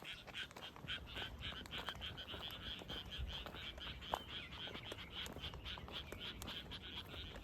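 A chorus of frogs croaking: a steady run of short pulses, about five a second, over a low rumble.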